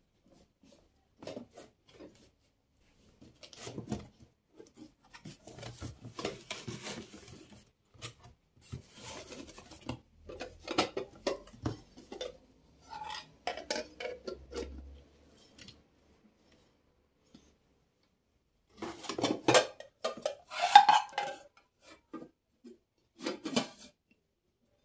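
Dishes and cutlery clinking and clattering as they are handled, in scattered bursts with short pauses. The loudest clatter comes about twenty seconds in.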